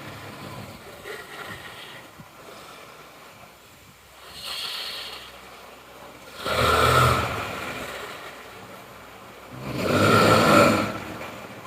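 A sleeping person snoring loudly in a slow rhythm: two loud snores about three and a half seconds apart in the second half, with a softer breath about four and a half seconds in.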